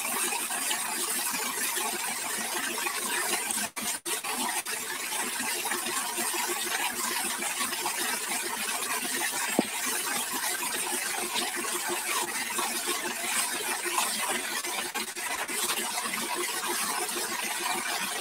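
Steady hiss and splatter of a jet of water from a hose striking a tractor's spinning rear tyre and being flung off as spray, with two brief dropouts about four seconds in.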